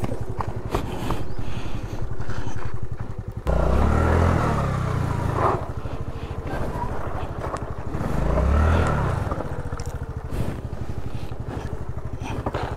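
Honda Activa scooter engine running under way. It suddenly gets louder about three and a half seconds in, then revs up and eases off twice, near four and near eight seconds in.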